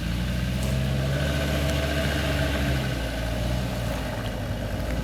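Off-road vehicle's engine running at a low, steady speed, with a slight shift in pitch partway through.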